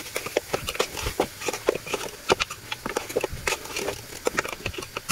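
Spoon stirring lamb shanks through a thick curry sauce in a metal pot, with irregular knocks and scrapes against the pot over a low sizzle.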